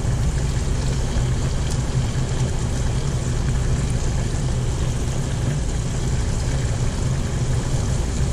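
Battered shrimp sizzling in the hot oil of an electric deep fryer, with a few faint crackles, over a steady low hum.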